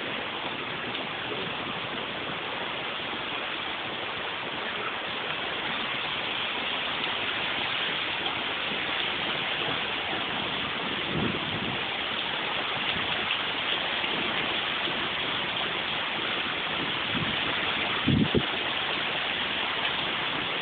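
Heavy rain falling in a steady hiss, with a few short low thumps about halfway through and again near the end.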